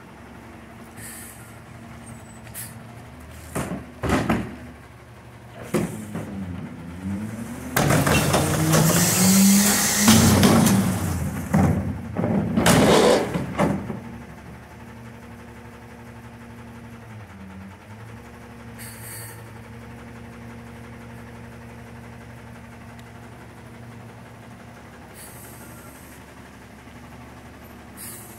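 Autocar ACX rear-loader garbage truck idling, with a few knocks and bangs as a trash cart is tipped into the McNeilus hopper. About eight seconds in, the engine revs up and the packer cycles loudly with a hiss for about six seconds, then the truck settles back to a steady idle.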